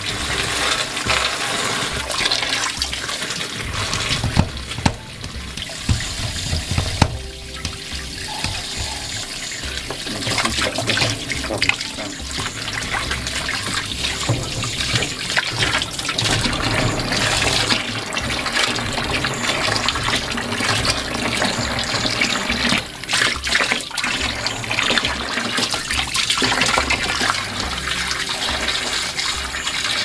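Water from a hose pouring and splashing into the partly filled tub of a top-loading washing machine, with hands sloshing and scrubbing in the water.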